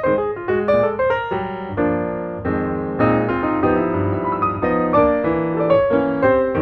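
Background piano music: a run of quick notes, then held chords around the middle, then quick notes again.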